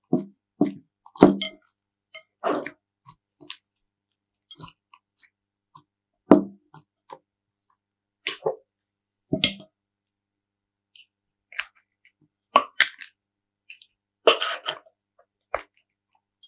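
Soft slime being squeezed and poked by hand, giving a dozen or so short squishes and plops at irregular intervals with dead silence between them.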